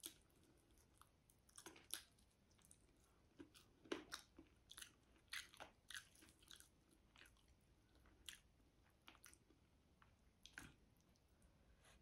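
Faint, close-miked chewing of braised chicken adobo: irregular wet mouth clicks and smacks, a few louder ones around two, four and five to six seconds in.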